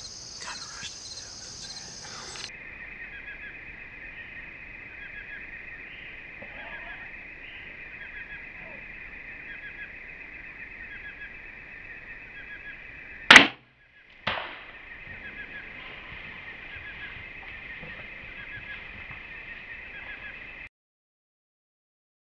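Crickets trilling steadily, with a single sharp crack from an archery shot at a doe about 13 seconds in. A second, weaker sharp sound follows about a second later. The sound cuts off to silence near the end.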